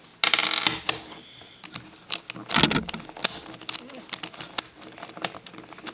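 Irregular sharp plastic clicks and snaps from the pieces of a V-Cube 4 puzzle cube being handled and pushed into place during reassembly. Two longer, louder noises come about half a second in and about two and a half seconds in.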